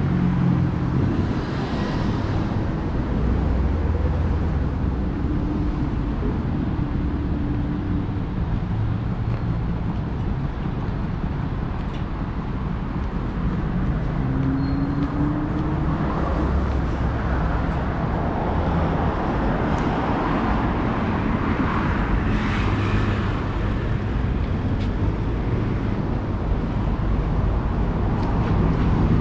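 City street traffic in the rain: car engines running and vehicles passing over a steady hiss of tyres on the wet road. The traffic noise swells about two-thirds of the way through as vehicles go by.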